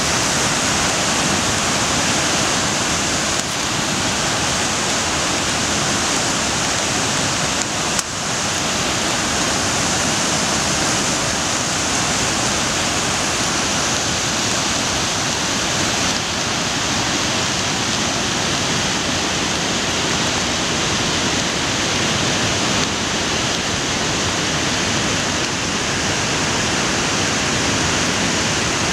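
Mountain river in flood after heavy rain, muddy white water rushing over boulders and small falls: a loud, steady rush of water.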